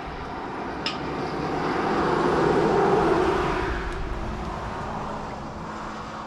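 A road vehicle passing by on the highway, its tyre and engine noise swelling to a peak about three seconds in and then fading away. A single sharp click just under a second in.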